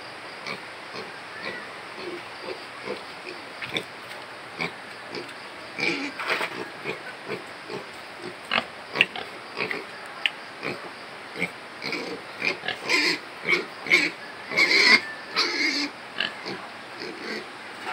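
A domestic pig eating feed from a trough, making short grunts and feeding noises that come faster and louder about two-thirds of the way through.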